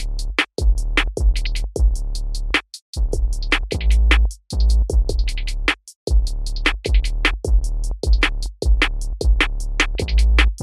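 Background music: an electronic hip hop beat with regular drum-machine hits over a deep bass line, breaking off briefly a few times.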